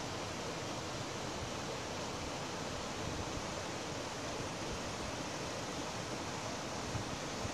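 Creek water rushing steadily over rocks, the stream running high with rainwater.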